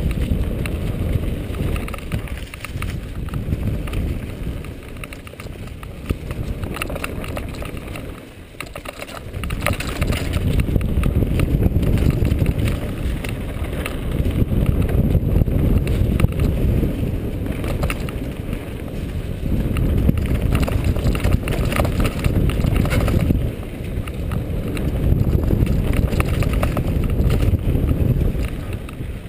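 Mountain bike riding fast down leaf-covered dirt singletrack: wind rushing over the microphone, tyres rolling over dry leaves and the bike rattling and knocking over bumps. The rush eases for a moment about eight seconds in, then picks up again.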